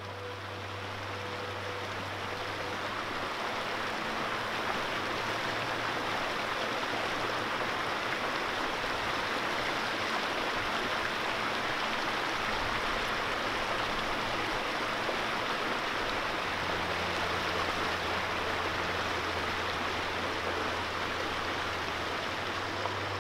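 Mountain stream flowing, a steady even rushing of water with no breaks. A low steady hum sits under it near the start and again in the last several seconds.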